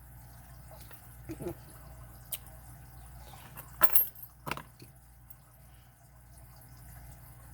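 A few small, sharp metallic clicks and taps from the parts of a disassembled Schlage KS22 padlock being handled, the loudest a close pair about four seconds in, over a low steady hum.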